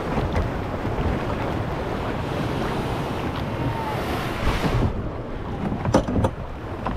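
Wind buffeting an action-camera microphone over shallow surf washing around a plastic sit-in kayak. The hiss cuts off about five seconds in as the kayak grounds on the sand, and two short sharp knocks follow about a second later.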